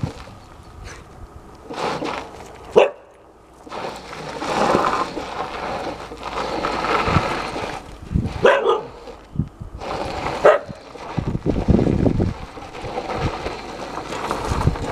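Siberian husky barking at a stuffed wolf, a few short barks spaced seconds apart, the sharpest about three seconds in.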